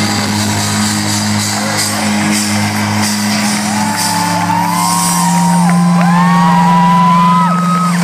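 A live rock band holds a sustained low chord in a large hall, changing note about four seconds in. From then on, crowd voices shout and whoop over it in many overlapping calls.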